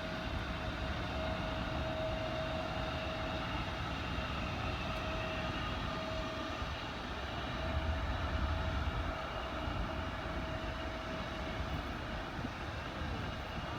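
Jet airliner engines running with a steady whine, over a low rumble that swells about eight seconds in.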